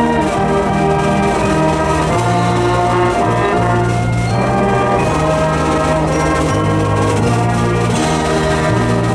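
School wind band playing, brass carrying the melody in long held notes over a low bass line.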